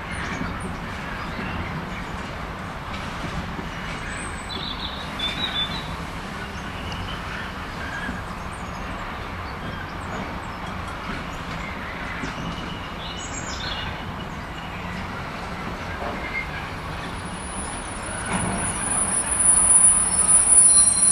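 Intermodal freight train's container wagons rolling past with a steady rolling noise. About seventeen seconds in, high-pitched wheel squeal starts and the sound grows louder toward the end. A bird chirps briefly about four seconds in.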